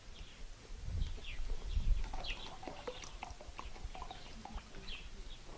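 Small birds chirping, short falling chirps every second or so, with a couple of low rumbles about one and two seconds in.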